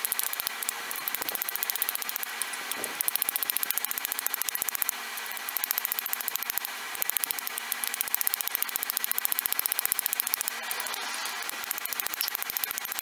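Small hammer of about 2 ounces tapping the end of a 1/8-inch brass pin over an anvil, peening it over in quick, even, light strikes. The light taps are flattening the metal only slowly.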